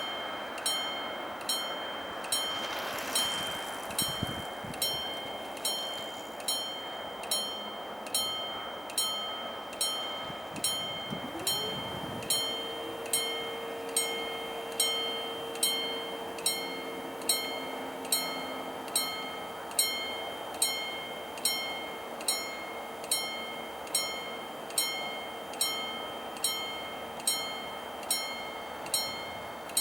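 Level crossing warning bell ringing in steady, evenly spaced strikes, a little more than one a second, signalling an approaching train. About twelve seconds in, a steady hum joins it and holds.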